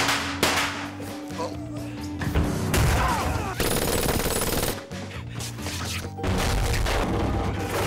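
Dramatic background music with a burst of rapid gunfire about three and a half seconds in, lasting about a second, and a few other sharp impacts.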